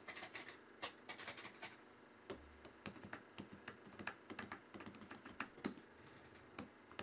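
Typing on a computer keyboard: faint, irregular key clicks, several a second, with a short pause about two seconds in.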